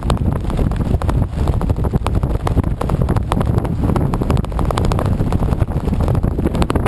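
Wind buffeting a camera microphone under an open parachute canopy: a loud, steady low rush with many short crackles throughout.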